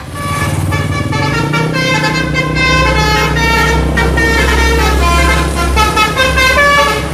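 Indonesian 'telolet' bus horns playing a tooting melody of quick changing notes over the steady low rumble of bus engines.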